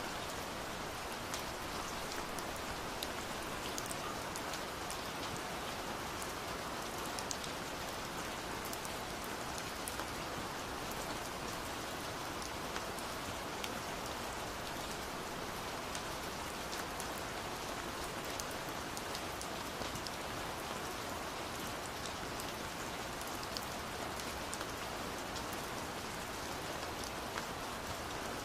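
Steady rain falling, an even hiss dotted with many small, sharp drop ticks.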